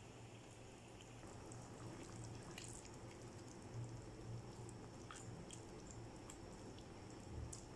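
Faint, sparse pops and clicks from chana daal simmering in a pan as it is stirred with a spatula, over a low steady hum.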